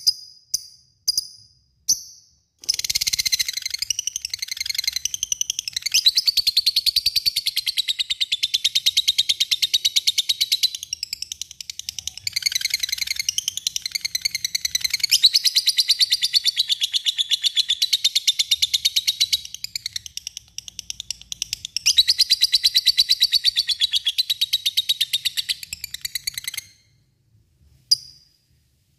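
Lovebird giving a few sharp single chirps, then from about three seconds in a long, very rapid chattering trill, the 'ngekek panjang' call, that runs on for over twenty seconds with brief dips. It breaks off near the end, followed by a pause and one more chirp.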